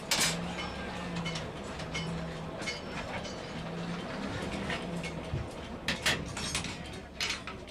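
Hand-cranked Champion 400 forge blower whirring in repeated pulses, stopping about five seconds in; its gearbox is noisy because the oil leaked out and the metal rusted. Sharp metal clinks now and then, the loudest near the start and about six seconds in.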